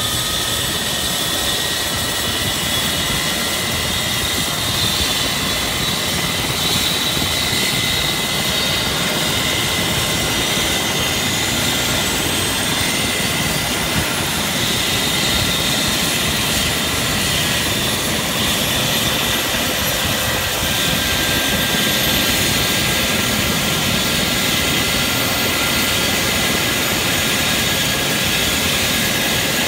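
Eurocopter EC135 air-ambulance helicopter running on the ground with its rotor turning. Its turbine whine climbs steadily in pitch for several seconds about a third of the way in and then holds, as the engines spool up toward take-off power. A steady high whine runs underneath.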